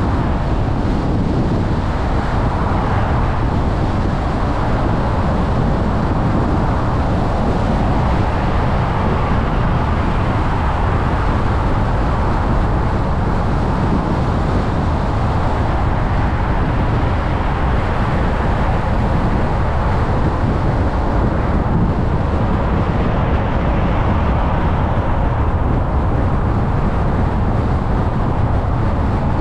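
A car driving at highway speed: steady tyre and wind noise with no change throughout.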